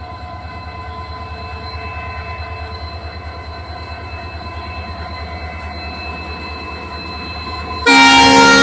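Locomotive standing with its engine running, a steady low pulsing hum with a faint steady whine. Near the end its horn comes in suddenly and very loud and keeps sounding: the departure signal.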